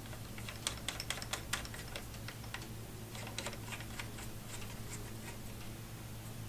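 Hardline compression fitting being hand-tightened onto a GPU waterblock: a run of small, irregular clicks and ticks as fingers turn and grip the collar, thickest in the first two or three seconds and sparser after, over a low steady hum.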